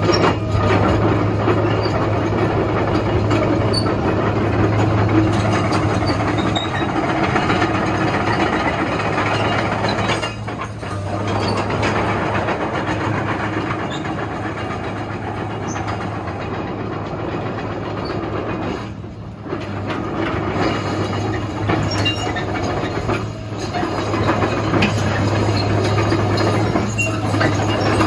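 Komatsu PC230-8 hydraulic excavator being operated: its diesel engine runs with a steady low drone under the noise of the working hydraulics. The sound eases briefly twice, about a third and two thirds of the way through.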